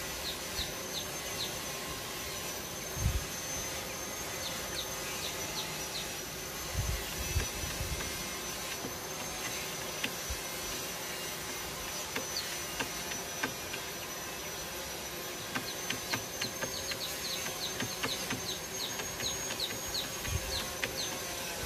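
Insect ambience: a steady high drone with groups of short, high chirps, most of them in the last few seconds. A few soft low bumps from handling the wire feeder.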